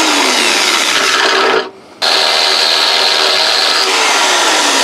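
Electric drill with a 12 mm bit cutting through the steel bow deck of a narrowboat, enlarging a 10 mm hole. It stops about one and a half seconds in and starts again half a second later. The motor's pitch sinks as the bit bites: very slow going.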